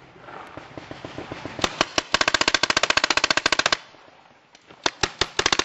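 Paintball markers firing. Faint scattered shots come first; then a marker fires in rapid strings: a long burst of about fifteen shots a second lasting about a second and a half, a few single shots, and another rapid burst near the end.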